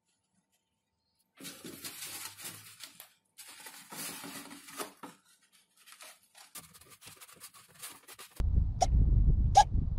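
Scratchy rubbing of a hand on a paper-covered foam wing, in short spells. About eight seconds in it gives way abruptly to a loud, low rumble of wind on the microphone, with a couple of short clicks.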